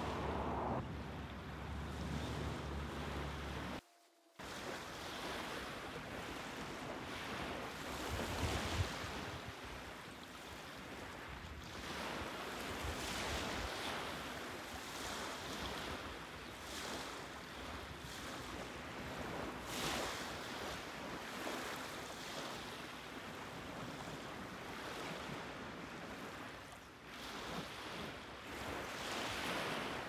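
Small waves washing onto a sandy beach, with wind buffeting the microphone. The sound drops out briefly about four seconds in.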